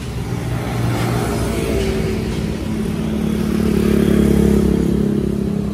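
A motor vehicle passing on the road, its engine growing louder to a peak about four seconds in and then fading.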